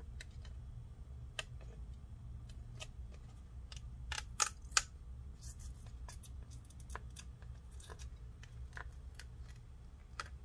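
Light, scattered clicks and scrapes of a tool picking and scraping old battery adhesive and foam out of a MacBook Pro's case, with a quick run of three sharper clicks a little past the middle. A steady low hum runs underneath.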